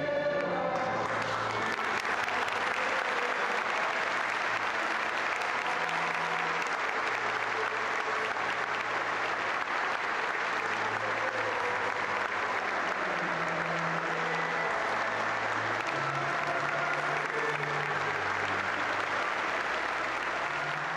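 A church congregation applauding at length, with low instrumental notes underneath. Choir singing breaks off at the very start as the clapping takes over.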